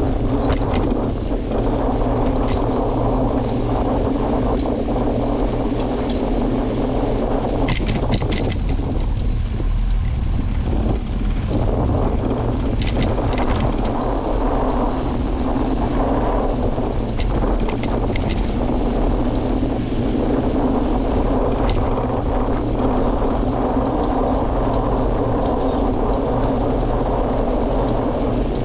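Steady wind noise rumbling on the microphone of a moving camera, with a few short clicks scattered through.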